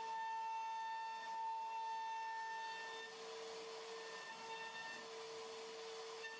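CNC router spindle carving a relief pattern into a wood panel: a steady high whine with overtones over a hiss of cutting. The upper tone is louder for the first three seconds, then weaker.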